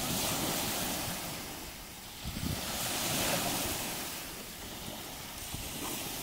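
Small Baltic Sea waves washing onto the beach, a steady surf noise that swells and fades every few seconds, with some wind on the microphone.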